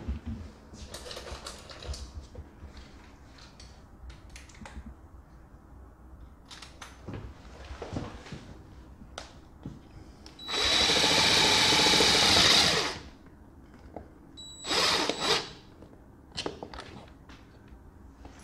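DeWalt cordless driver driving a hex screw through a roller-shade mounting bracket into the window frame. It runs steadily for about two seconds past the middle, then gives a shorter burst a couple of seconds later, with light clicks of the bracket being handled.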